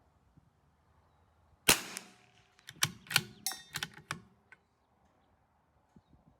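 A single shot from a CZ 457 bolt-action .22 LR rifle, a sharp crack with a short echo, followed about a second later by a quick series of metallic clicks and clanks as the bolt is worked.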